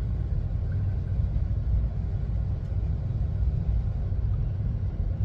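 A steady low background rumble, with no clear clicks or knocks from the lock being handled.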